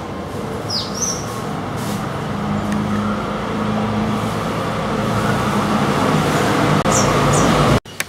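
Road traffic passing, with a heavy vehicle's engine drone growing steadily louder and cutting off suddenly near the end. A few short, high bird chirps sound over it, one about a second in and two more shortly before the end.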